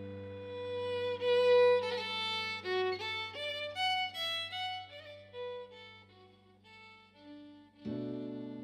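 Background fiddle music: a violin melody of short, quick notes over a held low chord, which sounds again near the end.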